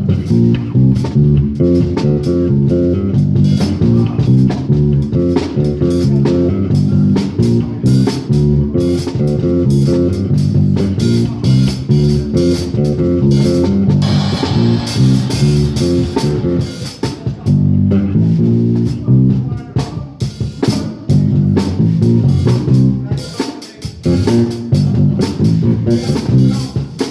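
Music with bass guitar and guitar playing while a drum kit is struck with sticks, drum hits and cymbal crashes over the band.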